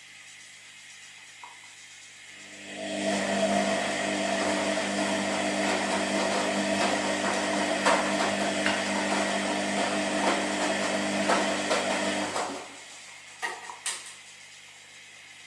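Washing machine running: after a low hum, its drum turns with a steady motor hum and a swishing, ticking wash noise for about ten seconds, then stops. A couple of short clicks follow near the end.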